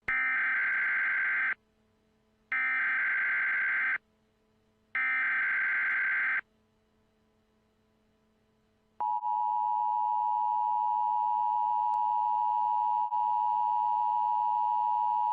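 Emergency Alert System tones: three bursts of digital header data tones, each about a second and a half long with a second's pause between, then about nine seconds in the steady two-tone attention signal starts and holds.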